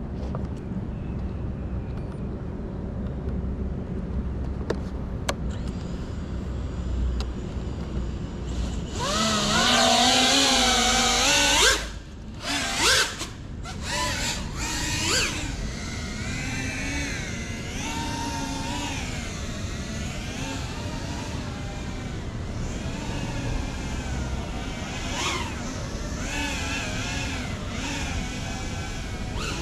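Small FPV cinewhoop quadcopter (GEPRC CineLog 35) with ducted propellers, its motors whining. They spin up loudly about nine seconds in and cut in and out briefly, then keep rising and falling in pitch as the throttle changes. A low steady rumble comes before the spin-up.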